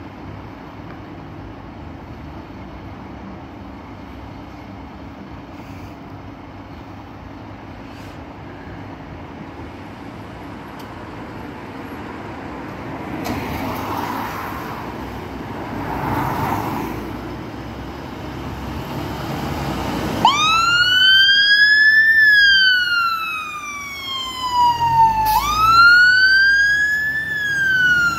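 Fire engine turning out: a steady low engine rumble with a car passing by. About two-thirds of the way in, the siren starts a slow wail that rises, falls, then jumps back and rises again.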